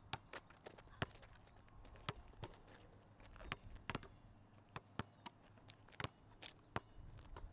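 Faint, irregular sharp knocks and taps of a basketball and sneakers on an asphalt court, with no steady rhythm.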